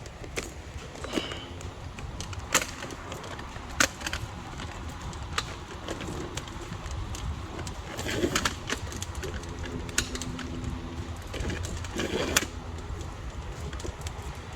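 Sharp metal clicks and clanks from work on a car's front brake caliper, with two noisier scrapes later on. A bird coos in the background in two spells, around the middle and again about ten seconds in.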